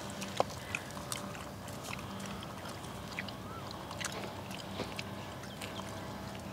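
Quiet outdoor ambience: a faint steady low hum with scattered soft clicks, the clearest about half a second in, and a few short faint chirps.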